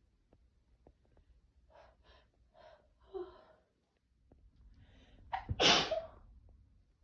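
A woman's short catching breaths building up to one loud sneeze about five and a half seconds in.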